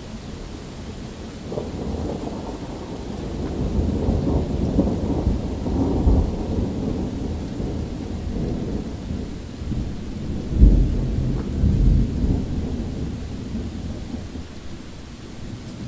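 Thunder rolling over steady rain. A low rumble builds over the first few seconds and swells, the loudest peal comes about two-thirds of the way through with a second close behind it, and the rumble then dies away.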